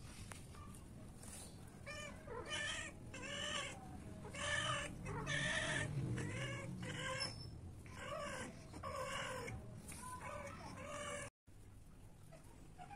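Cats mating: a series of short, pitched yowls repeated about once a second, loudest around the middle.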